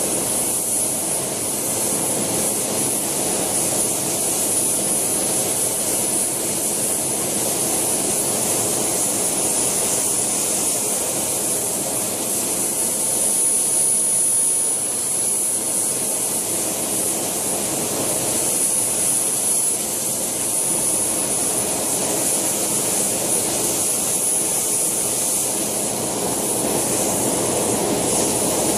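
JetCat PHT2 model helicopter turbine running steadily with a high-pitched whine over the rush of its exhaust and the main rotor, swelling slightly about halfway through as the scale Alouette II model is flown just off the ground.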